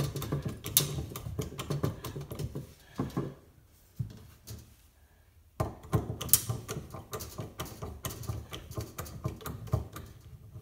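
Hand screwdriver driving a screw through a steel tape-measure element into PVC pipe: a rapid run of small clicks and creaks that stops for about two seconds in the middle, then starts again.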